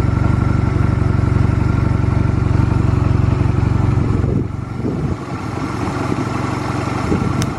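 Honda Rebel 250 motorcycle's air-cooled parallel-twin engine idling steadily, running without abnormal engine noise. About four seconds in the steady idle breaks off and a quieter, uneven sound follows, with a sharp click near the end.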